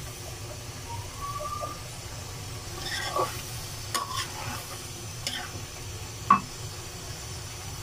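Metal spatula stirring eggplant and potato pieces in a frying pan over a low sizzle. A few sharp scrapes and knocks of the spatula against the pan come from about three seconds in, the loudest near the end.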